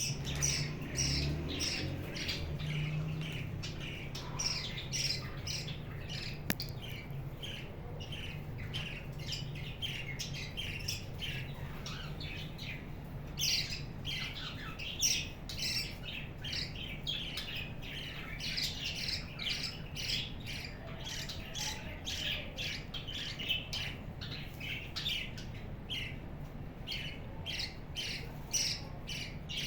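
A colony of budgerigars (budgies) chattering and squawking, many short, rapid calls overlapping without pause, over a steady low hum.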